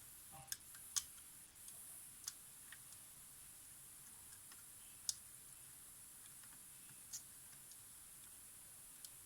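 Faint, sparse clicks and small taps of fine tools against the camera's parts during desoldering of a flex cable, about five irregular clicks over a steady faint high hiss.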